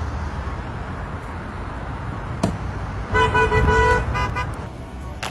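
Car horn honking: one held blast of about a second, then a few short toots, over a steady low rumble.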